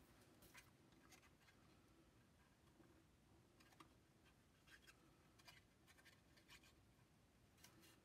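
Near silence, with faint scattered taps and rustles of hands handling cardstock and a plastic glue bottle.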